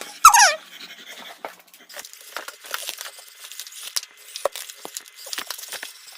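An excited dog panting, with one short, high, falling squeal about a quarter second in and faint scattered clicks after it.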